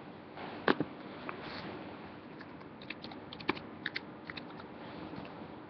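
Clicks and knocks of the recording device being handled close to the microphone: a sharp knock about a second in, then a run of quick light clicks in the second half, over faint room tone.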